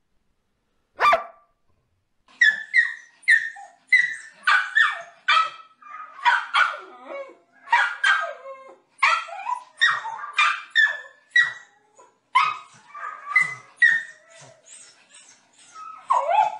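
A black-and-white dog gives a single sharp bark about a second in. After a short pause, a small white long-haired dog barks over and over in a quick, steady run, about two barks a second.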